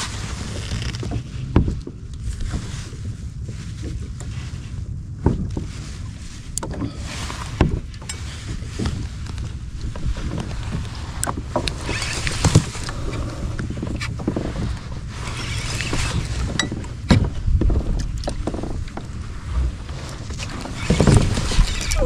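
Sounds of a fishing kayak on the sea: a steady low wind rumble on the microphone with water noise, and scattered sharp knocks and clicks against the hull and gear.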